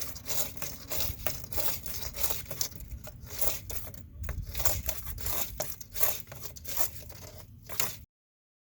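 Homemade scraping tool being worked inside a drain pipe, grating and scraping out rocks and debris in quick irregular strokes. It cuts off suddenly near the end.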